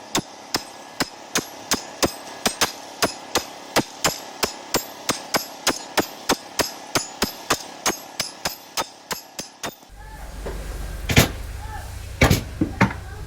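Evenly spaced hammer strikes, about three a second and speeding up slightly. About ten seconds in the sound changes abruptly to a low rumble with a few louder knocks.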